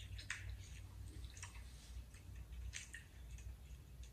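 Faint eating sounds of people chewing fried chicken: a few short, irregular crisp crackles and mouth noises over a low steady hum.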